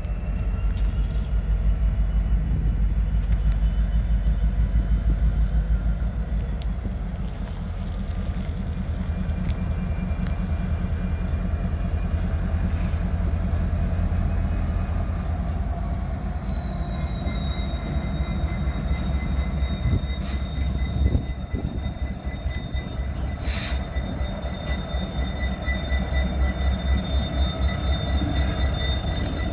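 Diesel freight locomotives rolling slowly past with a heavy low rumble and a thin, high wheel squeal. The squeal rises in pitch over the first few seconds, drops, and then holds steady. A few sharp clanks come through over the rumble.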